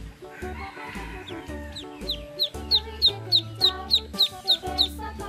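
Ducklings peeping: a run of short, high, falling chirps that grows louder and quicker about halfway through, about four a second, over background music with a steady beat.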